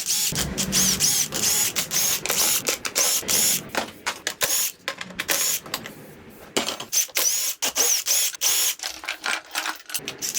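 Hand tools removing bolts during an LS V8 engine teardown: quick irregular runs of metallic clicking and rattling, with short bright pings of metal parts.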